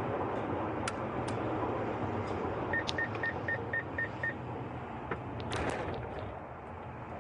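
Car cabin road noise as the car brakes hard from highway speed. About three seconds in, a rapid run of seven short high beeps, about four a second, sounds as a forward collision warning alert while closing on a stopped pickup.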